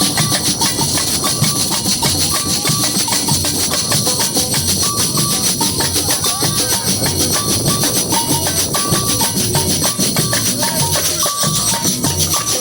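Samba percussion section (batucada) playing a steady, fast groove: deep bass drums beating under a constant high rattle of shakers and jingles, with short high notes cutting through.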